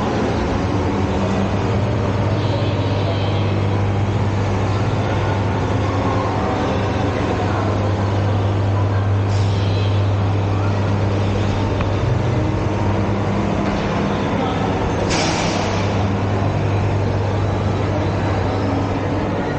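Steady low droning hum of a shopping mall's indoor background, with a brief burst of hiss about fifteen seconds in.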